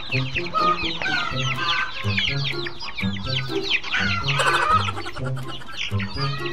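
A flock of young chicks peeping without pause: many overlapping short, high chirps that slide downward. Background music with a steady low bass line plays underneath.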